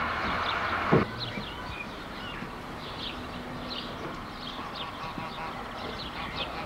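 Small birds chirping, many short high calls over a quiet background. This follows a steady rushing noise that stops with a thump about a second in.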